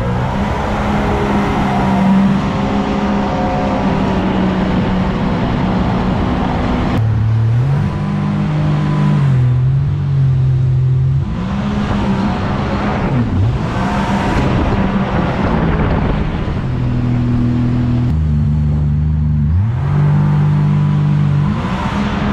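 Outboard motor running at speed, pushing a fishing boat upriver, over rushing water and wind. The engine's pitch drops and climbs several times, with brief dips about thirteen and nineteen seconds in.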